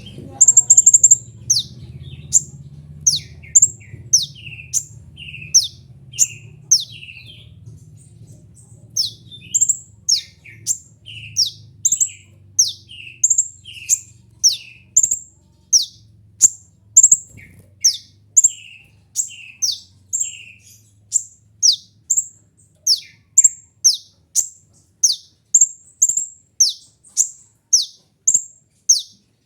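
Kolibri ninja, a sunbird, calling over and over: high, sharp notes that drop quickly in pitch, about one a second, each often followed by a short lower note.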